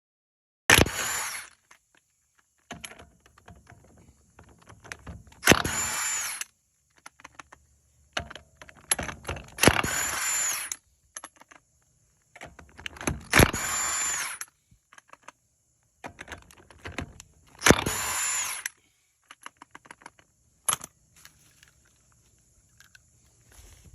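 Hand-held power tool run in five short bursts about four seconds apart, each spinning up and winding down over about a second. Small clicks and rattles come between the bursts.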